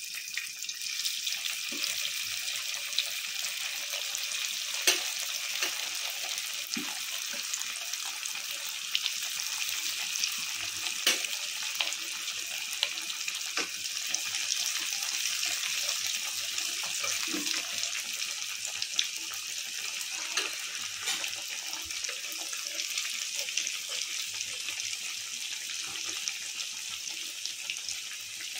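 Coated bread pieces deep-frying in hot oil: a steady sizzle with scattered sharp pops.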